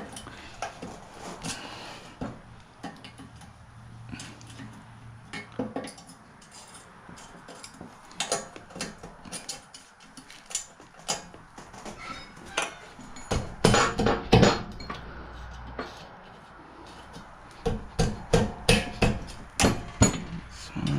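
Metal hand tools clinking and knocking on mini bike parts: scattered sharp metallic clicks and taps, with busier runs of strikes about two-thirds of the way through and again near the end.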